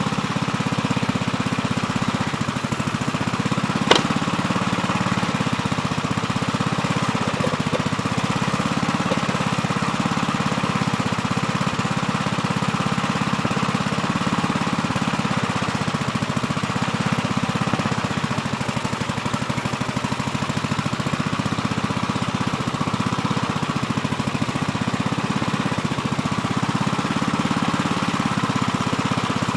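Gravely Terramite compact backhoe's engine running steadily, with a single sharp knock about four seconds in.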